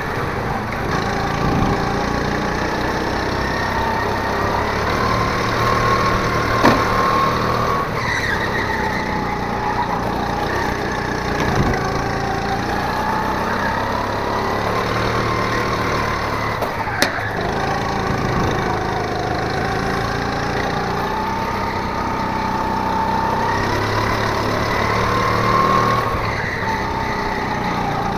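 Go-kart engine running under load, its pitch rising and falling again and again as the kart accelerates and slows through corners. Two sharp knocks stand out, one about a third of the way in and one a little past the middle.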